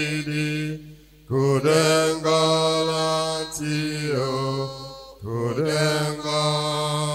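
Slow sung chant of long held notes, in phrases broken by short pauses about a second in and about five seconds in.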